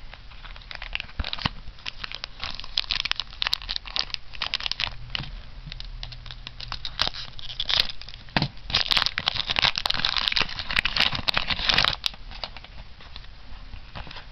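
Foil booster-pack wrapper crinkling as it is handled and torn open: a dense run of crackles that gets louder for a few seconds near the end, then stops.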